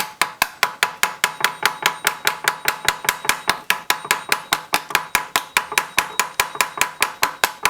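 Rapid, even hammer taps on a steel rivet-heading tool, about five blows a second, peening over the end of a copper rivet to form its head. Each blow is a sharp metallic tap with a light ring.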